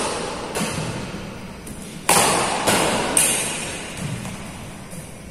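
Badminton rackets striking a shuttlecock during a rally: sharp smacks, three loud ones about half a second apart around two to three seconds in, each ringing on in a large reverberant hall.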